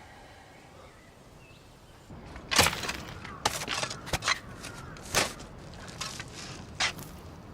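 A quiet stretch, then from about two seconds in a string of sharp, irregular swishes and knocks, about seven in five seconds: drama sound effects of fast movement or blows.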